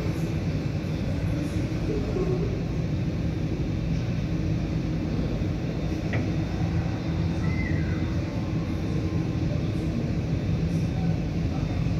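Boeing 787-9 airliner's engines at idle as it taxis slowly onto its stand: a steady low rumble with a hum. A faint short tone glides down about seven and a half seconds in.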